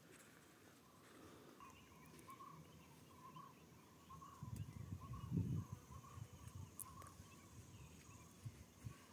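Faint open-air ambience: a small chirping call repeats a few times a second at one pitch. Low rumbling noise on the microphone swells about halfway through, then settles.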